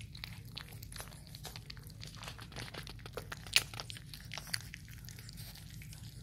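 Two-and-a-half-week-old Rottweiler puppies eating raw ground meat: a steady run of wet smacking, clicking and tearing mouth sounds, with a sharper click about three and a half seconds in.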